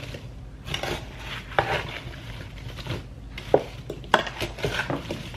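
Sliced apples being folded in a ceramic bowl with a wooden spoon, with irregular knocks and clinks of the utensils against the bowl; the sharpest clicks come about one and a half, three and a half and four seconds in.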